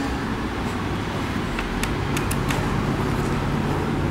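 Steady low background rumble, with a few faint light clicks about halfway through as a small Phillips screwdriver is set into the screws of a tablet's metal back case.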